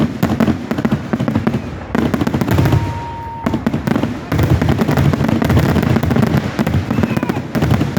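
Fireworks going off at close range: dense, rapid crackling reports that come in several surges, with a brief steady whistling tone about three seconds in.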